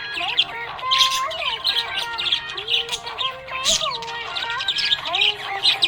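Budgerigars chirping and twittering busily in quick overlapping bursts, over a background song melody.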